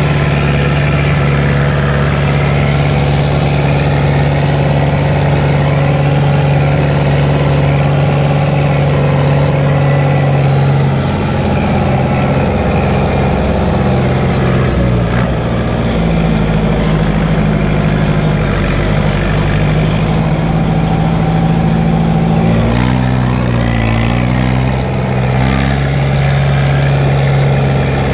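Fiat 70-66 tractor's diesel engine running steadily under load while mowing, with a dense mechanical hum over it. The engine note shifts a few times and wavers near the end.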